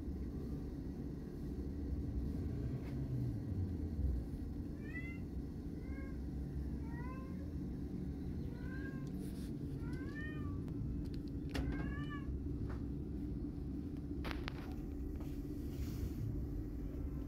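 Young kitten mewing: about ten short, high mews that rise and fall in pitch, mostly in quick pairs, through the middle of the stretch. A steady low hum runs underneath.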